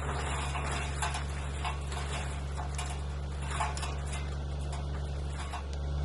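Frontier DH8 wood chipper running with a steady low hum, with scattered light clicks and knocks. The hum dips briefly near the end.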